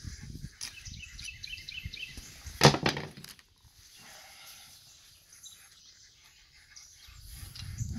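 Light metal clicks and scraping from a small hand tool working at the packing rings of a telescoping dump-trailer hydraulic cylinder ram, with one loud knock about three seconds in.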